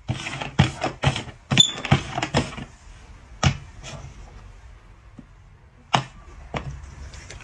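Small cups knocked and slid about on a board during a shell game: a quick run of about six clacks, then a single knock, then two more near the end as a cup is tapped by a dog's paw and lifted.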